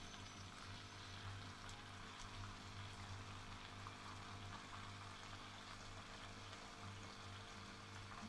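Faint, steady sizzling of chicken and ketchup sauce simmering in a wok on low heat, with a low hum underneath.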